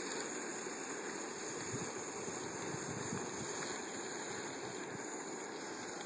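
Coleman Dual Fuel camp stove burner running steadily under a pan of rice.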